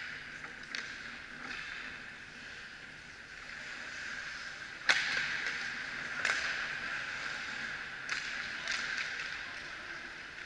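Ice hockey play: skate blades scraping the ice, with sharp clacks of sticks and puck, the loudest about five seconds in and others about six and eight seconds in.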